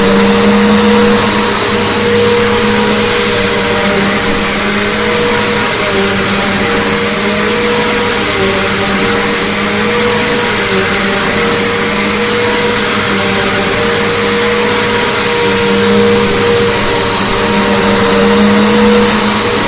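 Bissell Big Green Commercial BGU1451T upright vacuum cleaner running steadily, a loud motor hum with a thin high whine on top, its tone swelling and fading slightly.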